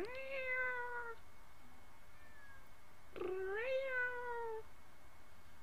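House cat meowing twice, two long drawn-out calls a few seconds apart, each rising and then slowly falling in pitch.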